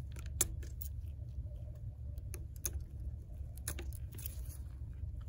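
Small, irregular clicks and taps of a plastic pry tool against the iPhone X's internals as the screen flex-cable connectors are pried off the logic board, the sharpest about half a second in, over a steady low hum.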